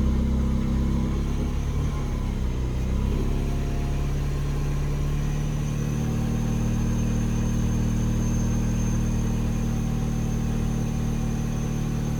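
Mini Cooper petrol engine idling while a Vanos adaptation runs; the idle note dips and changes about two to three seconds in, then holds steady. The engine still has a misfire on one cylinder, and the owner suspects an exhaust leak.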